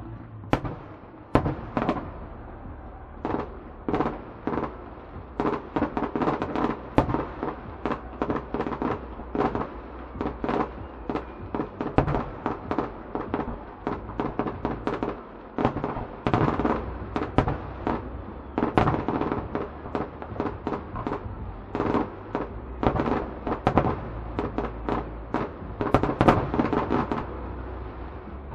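Aerial firework shells bursting in a long, irregular run of sharp bangs, often several a second.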